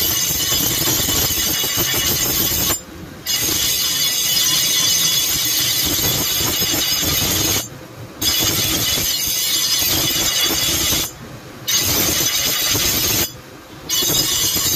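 Leaf-spring steel meat cleaver being sharpened on a spinning abrasive grinding wheel: a loud, steady, high grinding screech. It breaks off four times for about half a second as the blade comes off the wheel.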